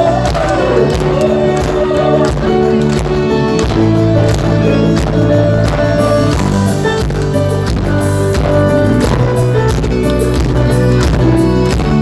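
Worship band music playing, with a steady drum beat under a strong bass and held chords.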